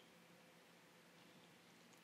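Near silence: faint steady hiss, with one faint tick at the very start.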